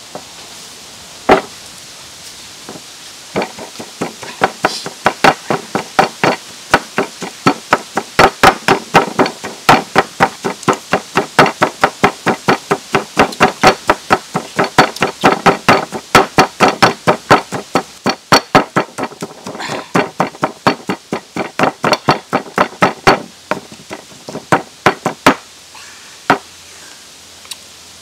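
A bamboo tube used as a pestle pounding food in a bowl: a steady run of sharp knocks, about three a second, after a single loud knock just over a second in.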